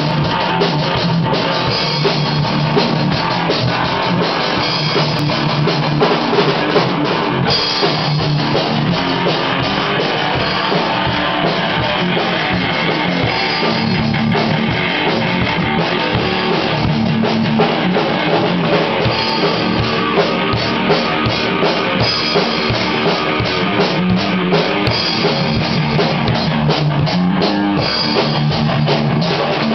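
Electric guitar and drum kit playing rock together, loud and without a break, the drums and cymbals going under the guitar.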